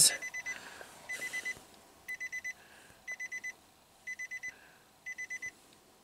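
Electronic alarm beeping in groups of four short high beeps, one group each second, six groups in all.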